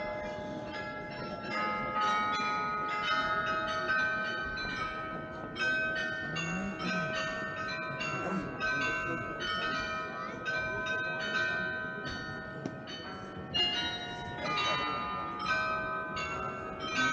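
The bells of the Munich New Town Hall's Glockenspiel playing a tune, each struck note ringing on under the next ones, about two notes a second.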